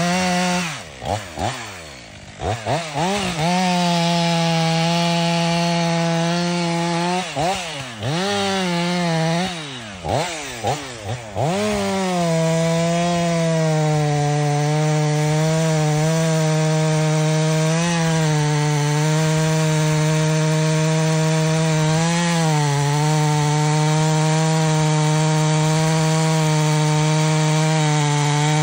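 Two-stroke chainsaw revving up and down in short bursts with brief drops toward idle for about the first twelve seconds, then running steadily at full throttle as it cuts into the base of a standing tree trunk to fell it.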